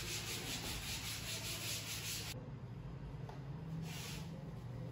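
Chalkboard duster wiped rapidly back and forth across a green chalkboard, erasing chalk writing. The rubbing strokes stop a little over two seconds in, and there is one more short wipe near the end.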